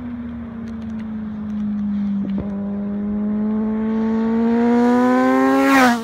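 Sport motorcycle engine pulling towards the listener, its note climbing steadily in pitch and loudness, then passing close near the end with a sharp drop in pitch.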